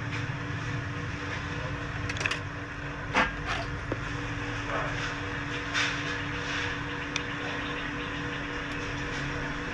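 A steady mechanical hum over a noise bed, broken by a few faint clicks and small knocks.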